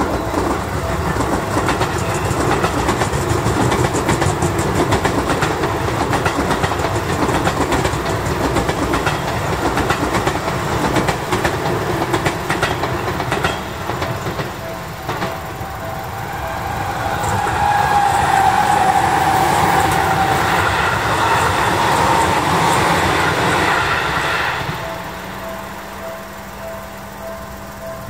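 Railway crossing warning bell ringing steadily while an electric commuter train passes, wheels clattering over the rail joints. From about midway a rising electric motor whine joins in. It stops about 25 seconds in, and the bell rings on alone.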